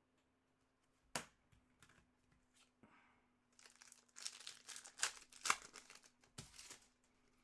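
Foil wrapper of a hockey card pack crinkling and tearing as the pack is opened by hand. There is a sharp click about a second in, and the crackling builds from about halfway through.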